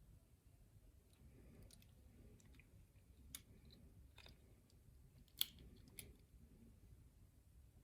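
A few faint, sharp small metallic clicks, the loudest about five and a half seconds in, as a shim and a brass padlock's plug are handled while the lock is taken apart.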